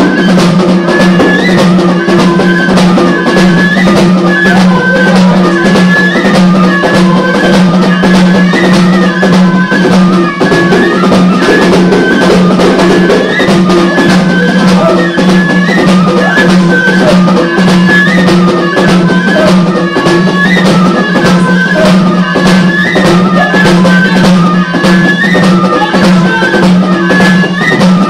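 Moroccan folk music: two end-blown pipes play a repeating, ornamented melody over a steady drone, with hand-beaten frame drums keeping a fast, driving rhythm.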